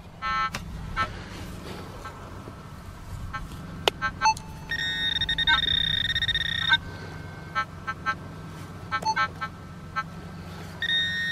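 Metal detector sounding over a target in a dug hole: short electronic beeps and one tone held for about two seconds, showing the metal object is still in the ground.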